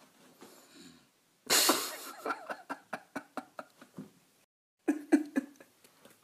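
A person bursting into laughter: a loud snorting burst about a second and a half in, then a run of short rapid laughs. The laughter breaks off in a brief dead silence and starts again near the end.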